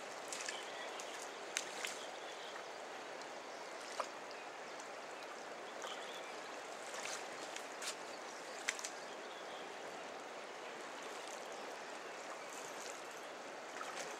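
Steady rush of flowing river water, with a few short faint clicks scattered through it.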